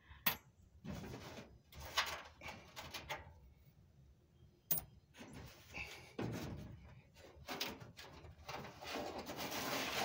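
Loose coins clinking and scraping on sheet metal as a hand rakes them out of the base of an old clothes dryer and drops them onto a pile, in irregular clinks with a few sharper metallic knocks.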